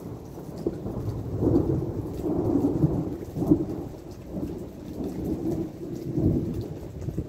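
A long roll of thunder rumbling for several seconds, swelling to its loudest a couple of seconds in and again near the end, over falling rain.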